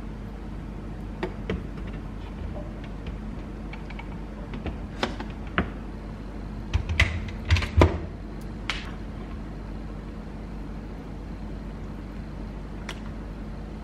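A metal spoon and a glass mug clinking and knocking on a wooden chopping board. Scattered single clicks, with the loudest knocks and thuds about seven to eight seconds in, over a steady low hum.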